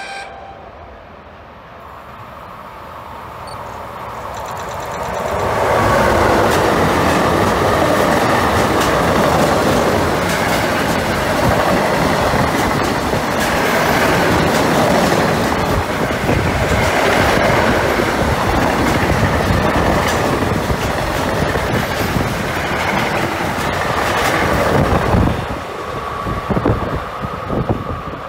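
Freight train of double-deck car-carrier wagons passing close through the station: a dense rush of wheel and wagon noise with rapid clatter over the rail joints, building over the first few seconds and staying loud until it drops near the end. A short horn note sounds right at the start.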